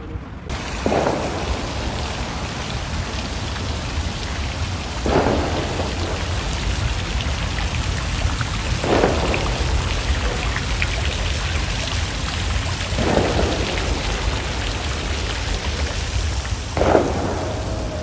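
Water of a tiered stone fountain pouring from its bowls and splashing into the basin, a steady rushing noise that starts suddenly about half a second in, with brief swells about every four seconds.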